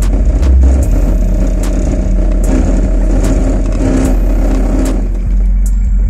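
A car driving, heard from inside the cabin: steady engine and road rumble, with faint ticks recurring a little more than once a second.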